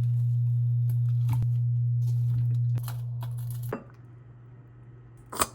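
A steady low electrical hum, with a few light clicks over it. The hum drops in level a little under three seconds in and mostly cuts off about a second later, and a sharp click comes near the end.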